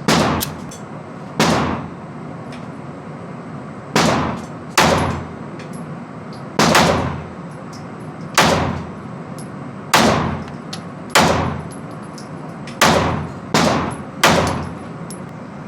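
Ruger EC9s 9mm pistol being fired for the first time: about eleven sharp shots, spaced one to two seconds apart, each with a short echo.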